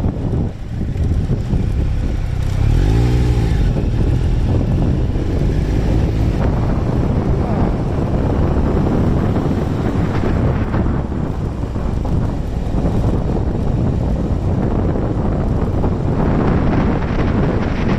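Heavy wind buffeting on the microphone of a moving motorcycle, with the Triumph Tiger Explorer 1200's three-cylinder engine running underneath. About three seconds in there is a brief rise and fall in pitch.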